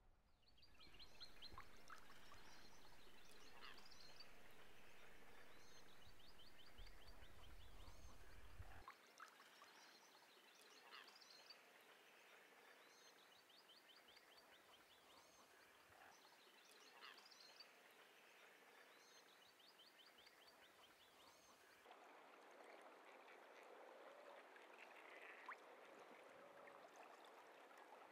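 Faint natural wildlife ambience: short high chirping trills repeated every second or two, over a low rumble that drops away about nine seconds in.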